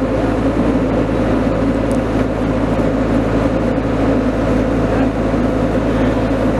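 Hydraulic excavator's engine running steadily while the arm and bucket work a pile of dirt and snow.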